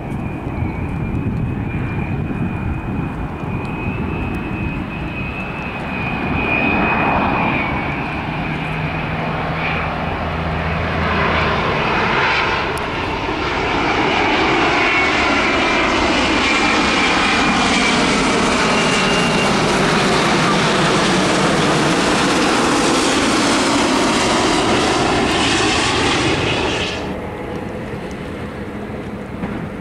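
Boeing 787 twin-engine jet airliner on final approach with gear down. A high, steady engine whine over a rising rush grows into a loud jet roar as it comes low overhead, lasting about twelve seconds. The roar cuts off suddenly near the end, leaving a fainter, more distant jet sound.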